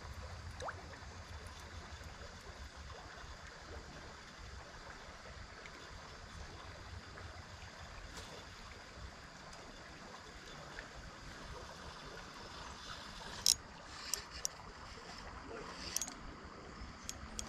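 Steady rush of flowing creek water, with a few sharp clicks about three quarters of the way through and near the end.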